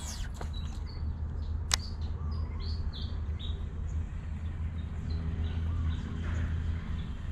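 Small birds chirping in short, quick notes, densest in the first half, over a steady low rumble, with one sharp click about two seconds in.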